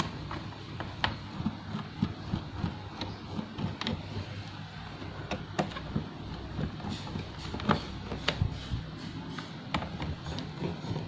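Irregular clicks and light taps of hands working on an Asus X441B laptop: plastic case parts and small screws being handled as it is reassembled after the RAM and SSD upgrade, over a low steady hum.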